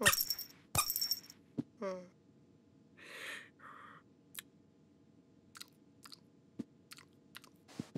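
Cartoon cat sound effects: two sharp rattling hits as the cat bats a toy mouse on a string, then a short cat vocal falling in pitch about two seconds in and two breathy puffs. From about halfway, a run of small wet clicks as the cat licks its paw.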